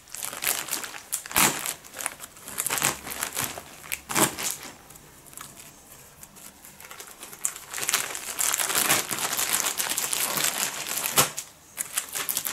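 Clear plastic film wrapping a toilet paper multipack crinkling and crackling as a knife cuts and pulls at it, with a few sharp clicks. It eases off for a few seconds midway, then crinkles hard again.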